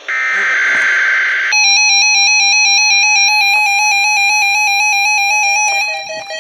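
A short burst of buzzing NOAA Weather Radio SAME digital data tones, then weather alert radios sounding their electronic alert beeps for a Required Weekly Test: a steady, rapidly warbling multi-tone beep. About five seconds in, a second, lower beep joins and starts to pulse.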